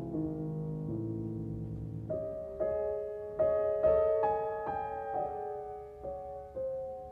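Piano playing alone in a song accompaniment: soft held chords, then from about two seconds in a series of struck notes stepping downward, about two a second, gradually fading.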